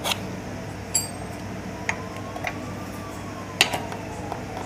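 Metal hand tools and bolt hardware clinking during work on a scooter: about five sharp clicks and clinks at irregular intervals, one with a brief high metallic ring, over a steady low hum.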